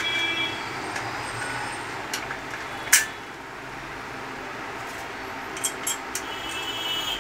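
Sharp metallic clicks and clinks of loose nuts and bolts and the iron stand's parts being handled on a wooden workbench, the loudest about three seconds in, over a steady background noise.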